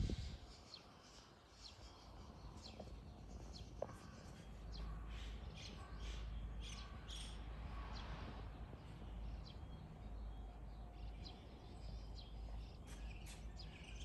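Small birds chirping faintly in short, scattered calls, over a steady low rumble that starts a few seconds in. At the very start the tail end of a crow's caw is heard.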